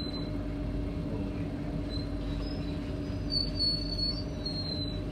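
Steady hum of a C151A MRT train standing at a station platform, with a few short high chirps over it in the second half.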